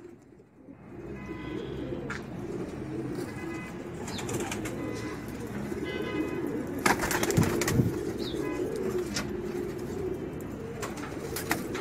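Several Teddy pigeons cooing steadily over one another in a low, warbling drone. A few sharp clicks cut in, the loudest about seven seconds in.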